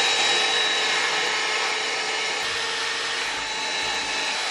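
Ryobi cordless handheld vacuum running steadily with a constant high whine, held at a cordless drill boring holes into plasterboard to catch the dust.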